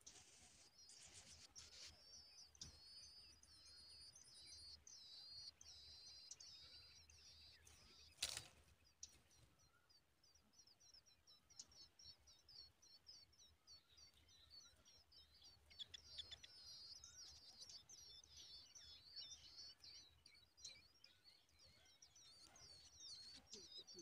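Tailorbird nestlings begging: faint, rapid, high-pitched cheeping in dense runs over the first five seconds and again over the last eight, sparser between, with one sharp click about eight seconds in.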